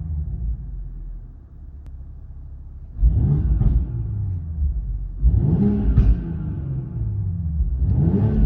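BMW X4 M40i's turbocharged inline-six with a Supersprint exhaust, tuned to 600 hp: a low rumble, then revving hard in three sudden bursts, each rising and falling in pitch.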